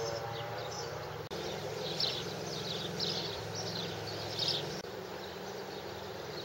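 Outdoor ambience with small birds chirping in short repeated bursts over a steady low hum. The sound drops out briefly twice where the footage is cut.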